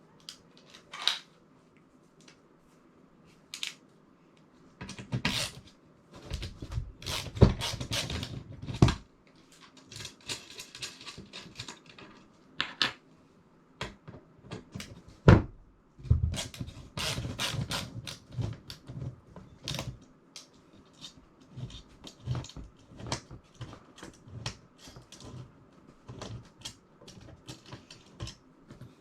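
Hands working on an assembly: irregular clicks, knocks and clattering of parts and tools being handled and fitted, with two sharper knocks about seven and fifteen seconds in.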